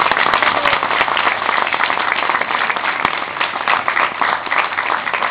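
Audience applauding steadily, a dense patter of many hands clapping with individual claps standing out.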